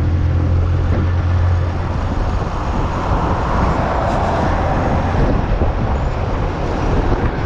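Vehicle travelling: a steady low engine hum that drops away about two seconds in, leaving an even rushing road and wind noise.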